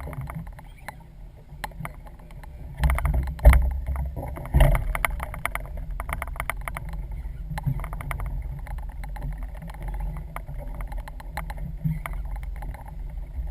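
Handling noise aboard a small fishing boat at sea: a steady low rumble, scattered clicks, and a few louder knocks and bumps about three to five seconds in.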